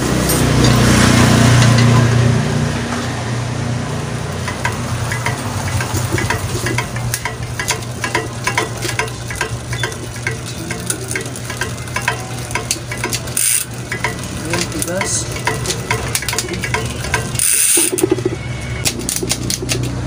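Bike repair stand clamp head being turned and adjusted by hand, its toothed rotating joint giving a long run of light, regular ratchet-like clicks, a few a second and quicker near the end. A steady low hum lies underneath, with a louder low rumble in the first two seconds.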